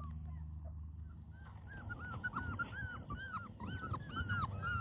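Several four-week-old Labrador puppies whimpering in short, high, overlapping cries, more and quicker from about a second and a half in, over a steady low hum.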